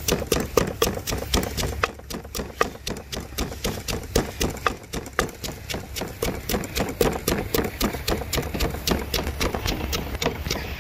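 Wooden pestle pounding chopped chilies and aromatics in a clay mortar: a rapid, even rhythm of dull knocks, several strokes a second, grinding the ingredients into a paste.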